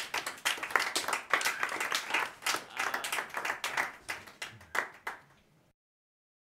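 Audience applauding with individual hand claps, thinning out near the end and cutting off abruptly.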